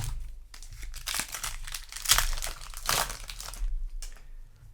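Foil booster pack wrapper being crinkled and crumpled in the hands, in irregular crackling bursts that are loudest around the middle and die away near the end.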